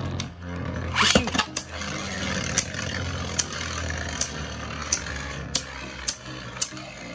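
Two Beyblade Burst spinning tops whirring in a plastic stadium with a steady low hum, and sharp plastic clacks about once a second as they knock into each other.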